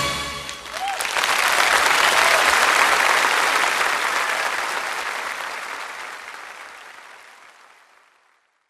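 The last instant of a synth-pop song, then an audience applauding. The applause fades away to silence near the end.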